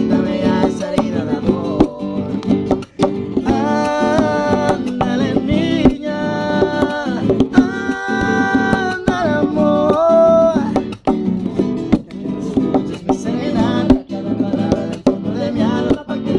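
Acoustic guitar strummed in a steady rhythm, with a man singing long held notes over it in the middle stretch.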